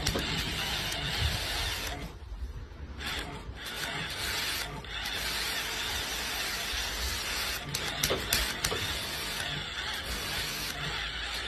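Continuous mechanical rattling and clicking, like a ratchet or gear mechanism, with brief dips about two and four and a half seconds in.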